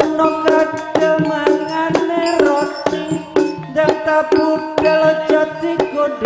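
Live jaranan ensemble playing: drums struck in a busy rhythm under a ringing pitched percussion melody.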